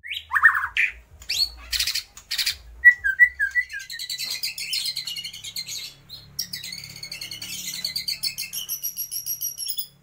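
Caged white-rumped shama singing: a few sharp high calls, a short run of falling whistles about three seconds in, then a long fast chattering trill. Its song is built on mimicked phrases (tembakan) of lovebird, kapas tembak and pijantung gunung.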